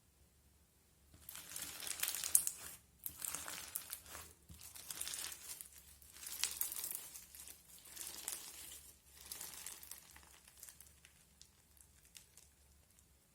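Crunchy slime crackling in about six waves, starting about a second in and thinning to faint scattered pops near the end.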